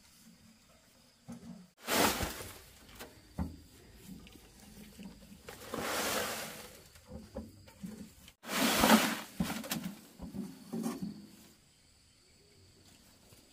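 Loose soil tipped out of a metal wheelbarrow, pouring and sliding onto the ground in three rushes, with knocks and scrapes of the barrow in between. The first and third rushes start suddenly and are the loudest.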